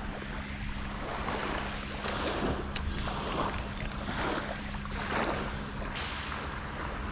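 Small waves lapping and washing on a sandy beach in soft repeated surges, with light wind on the microphone.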